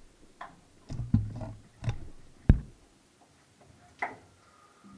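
Irregular knocks and thumps echoing in a narrow tunnel, about half a dozen over a few seconds, the sharpest about two and a half seconds in: footsteps and bumps of people moving through it.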